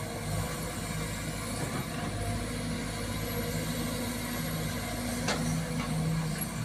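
Sumitomo hydraulic excavator's diesel engine running steadily while the machine swings and works its boom and bucket. One sharp clank about five seconds in.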